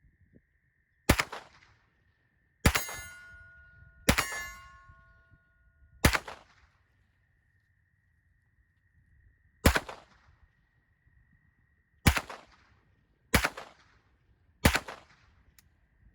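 Sig Sauer MPX Gen 2 8-inch 9mm pistol firing eight single shots at an uneven, deliberate pace. The second and third shots are each followed by a metallic ring.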